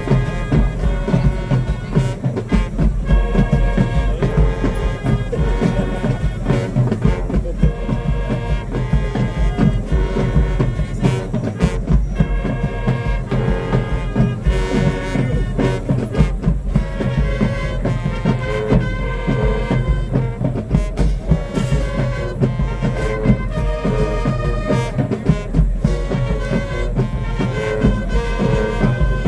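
High school marching band playing: brass carrying the tune in short, punchy chords over a steady beat of bass drums and drumline.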